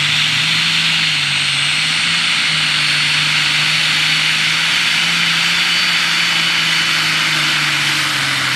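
Turbocharged diesel engine of a green John Deere pulling tractor running flat out under full load as it drags a weight-transfer sled: a loud, steady roar with a high turbo whine on top.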